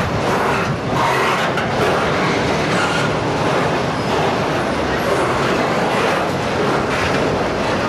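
Autorack freight cars rolling past on the track: a loud, steady noise of steel wheels running on the rails.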